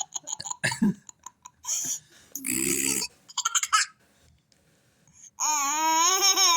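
A young girl making fake fart sounds: two short, low, buzzing blasts, one about a second in and a longer one around the middle, with small breathy puffs between them. Near the end comes a long, wavering, high-pitched vocal squeal.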